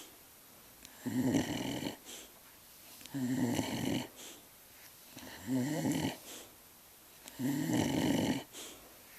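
Dog snoring in its sleep: four long snores about two seconds apart, each followed by a short, softer breath.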